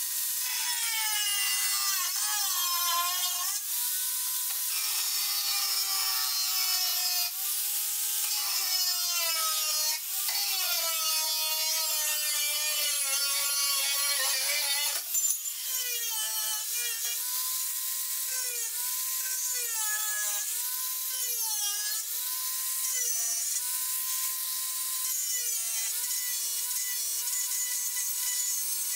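Angle grinder with a metal-cutting disc cutting through a steel table saw blade: the motor's whine dips in pitch each time the disc bites in and rises back as the load eases, over the steady hiss of the cut. There is a brief break about halfway through.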